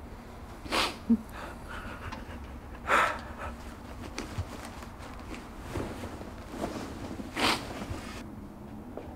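A man's heavy, sharp breaths and sniffs as he fights back tears: three loud ones a few seconds apart, with a small click about a second in.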